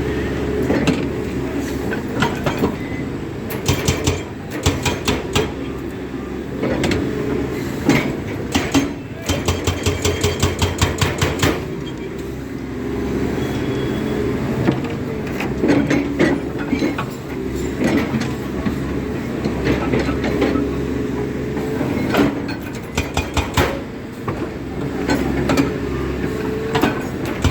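Excavator diesel engine running, with short runs of a hydraulic breaker hammer firing rapid metallic blows, about ten a second, the longest a couple of seconds near the middle.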